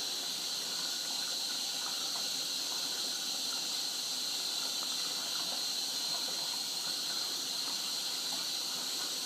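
Bendix 7128 washing machine mid-wash, giving a steady, unbroken hiss of running water.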